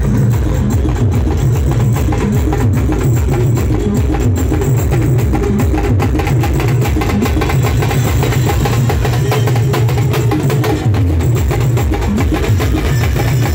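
Live street band music for dancing: drums beaten with sticks in a fast, dense, steady rhythm with heavy low beats.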